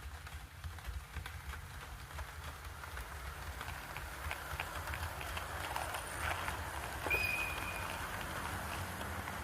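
A train running over a single slip switch, its wheels clicking irregularly over the rail gaps with a steady low rumble underneath. A short high whistle-like tone sounds about seven seconds in.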